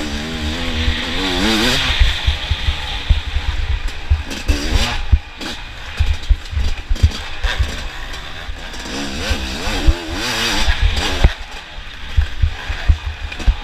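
Off-road racing engines revving as they pass, their pitch climbing and falling, loudest in the first two seconds and again about ten seconds in, with wind buffeting the microphone.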